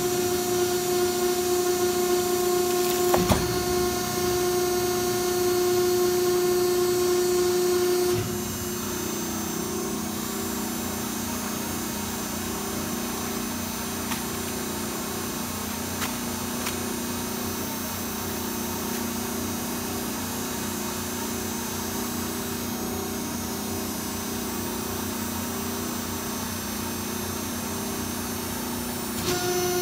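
A machine's motor running with a steady, high-pitched whine. About eight seconds in the pitch changes and the sound drops a little in level, and near the end the first whine comes back. There is one sharp click about three seconds in.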